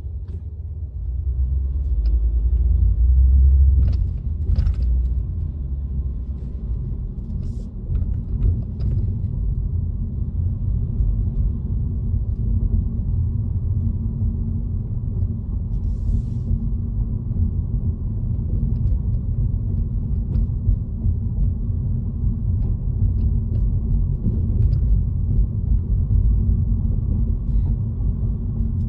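Low, steady rumble of a car driving, heard from inside the cabin: engine and tyre noise, louder for a few seconds near the start as the car pulls away from the light, with a few faint clicks and ticks.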